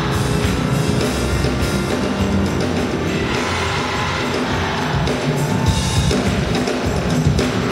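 Live gospel choir singing with a band, the drum kit prominent.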